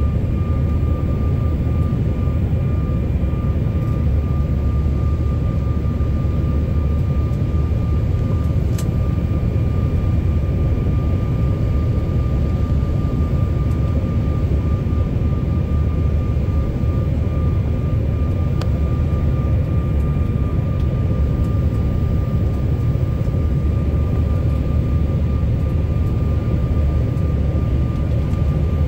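Airliner cabin noise during descent on approach to landing: a steady low rumble of engines and airflow, with a constant thin whine running through it.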